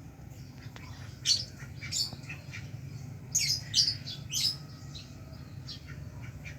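A bird giving a run of short, harsh high calls, about five loud ones in the middle of the clip among fainter chirps; the uploader calls it a strange, duck-like voice for a bird. A steady low hum sits underneath.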